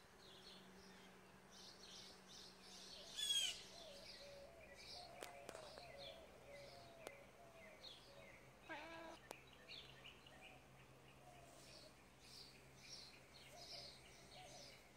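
Faint outdoor birdsong: many short chirps repeating, with one louder call about three seconds in.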